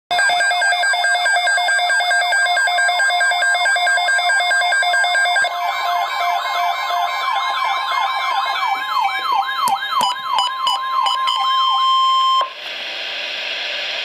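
Midland NOAA weather radio's electronic alert alarm: pulsing tones that turn into a fast warbling siren about five seconds in, with a steady tone near 1 kHz, typical of the National Weather Service attention tone, sounding over it in the last few seconds. The alarm cuts off suddenly about 12 seconds in, leaving radio hiss before the broadcast voice.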